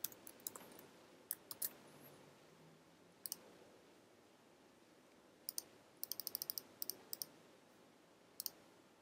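Faint, scattered clicks from a computer keyboard and mouse: a few keystrokes in the first two seconds, then a quick run of about eight clicks a little past the middle, and a last pair near the end.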